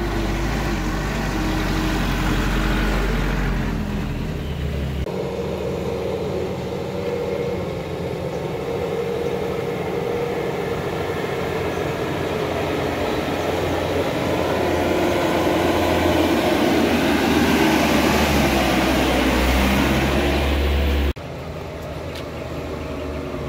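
Heavy truck's diesel engine running on a steep climb, growing louder from about two-thirds of the way through. The sound changes abruptly about five seconds in and drops suddenly near the end to a quieter engine.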